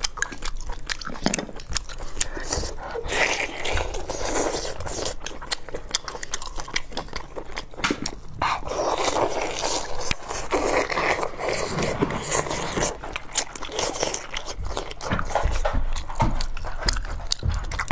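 Close-miked eating sounds: wet chewing, biting and lip-smacking, with many small clicks from mouths and food.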